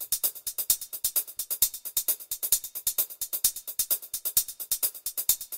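Background electronic music: a fast, even ticking beat, about eight high ticks a second, with little bass beneath.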